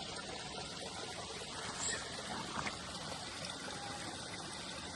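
Creek water running and trickling, a steady babble.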